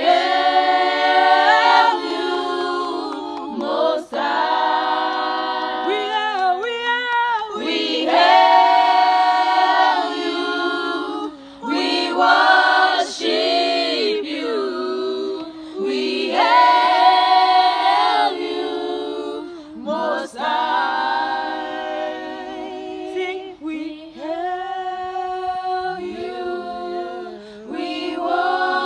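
A small group of women singing a worship song a cappella, without instruments, in long held phrases that break every few seconds.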